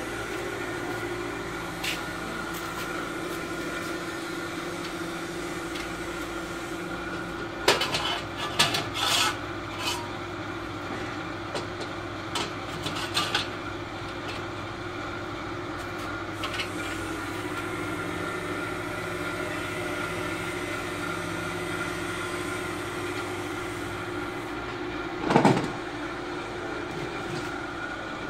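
A steady machine hum, with scattered knocks and clatter as metal parts of a traction bed frame and a board are handled and fitted; a cluster of knocks comes about eight seconds in and the loudest knock near the end.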